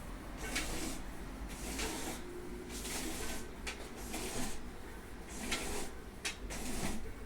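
Cord-operated window blind being worked: a run of short, irregular rasps and clicks as the cord runs through the mechanism and the blind moves.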